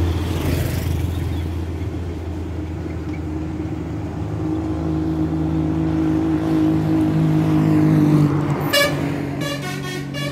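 A bus passing with its engine running: the hum rises in pitch and grows louder up to about eight seconds in, then eases off. Near the end come short, higher-pitched blasts from a horn.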